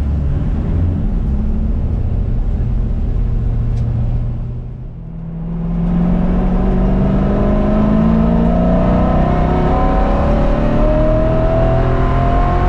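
1999 C5 Corvette's LS1 5.7-litre V8 with long-tube headers running hard on track. The engine note drops away briefly around five seconds in, then climbs steadily in pitch as the car accelerates through a gear.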